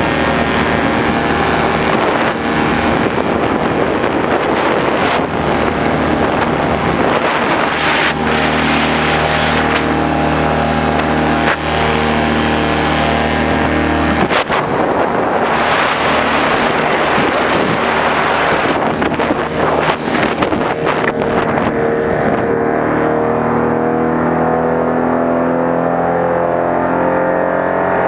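An engine running over a loud, continuous rush of noise; its pitch shifts about halfway through and climbs over the last few seconds.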